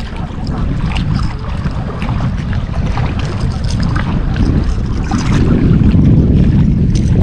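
Wind buffeting the microphone in a heavy low rumble that grows stronger about five seconds in, with small waves lapping at the rocky shore.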